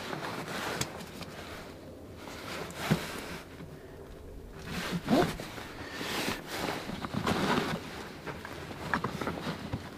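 Nylon webbing straps and plastic buckles on a backpack being handled and pulled tight: uneven rustling with occasional sharp clicks.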